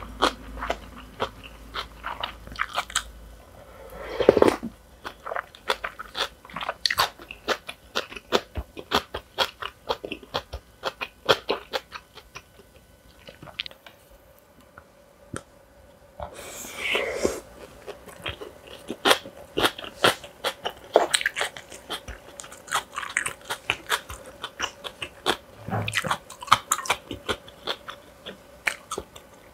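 A person chewing and crunching food in a mukbang, with many rapid crisp crunches throughout. A louder, longer mouth sound comes about four seconds in and again about seventeen seconds in.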